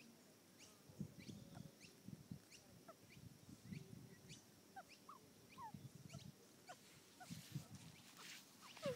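Young Australian magpie giving faint, short chirps scattered through, over low rumbles of handling noise.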